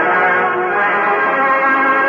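Music with sustained chords, many notes held at a steady level.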